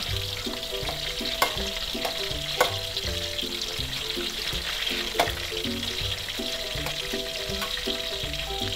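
Sliced long green eggplant deep-frying in hot palm oil in a wok, a steady sizzle, while a metal spatula stirs and clinks sharply against the wok three times.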